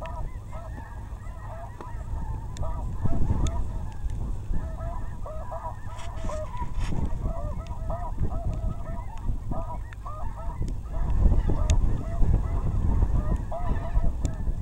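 A flock of snow geese calling, many short overlapping honks.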